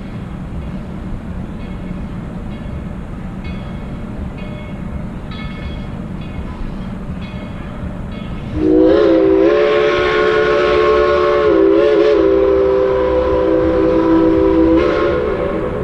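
A distant train runs with a low rumble. About eight and a half seconds in, a steam locomotive's chime whistle sounds one long, loud, several-note blast lasting about six seconds, dipping briefly partway through.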